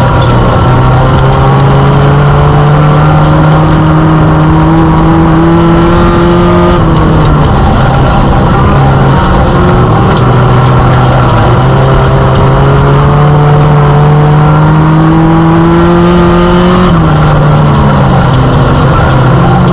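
Mini stock race car's four-cylinder engine, heard from inside the cockpit, running hard with its pitch slowly climbing down each straight. It drops as the driver lifts about seven seconds in and again near the end.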